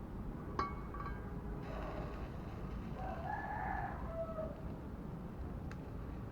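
A rooster crowing once: one drawn-out call starting about two seconds in and lasting a couple of seconds, over a steady low background noise.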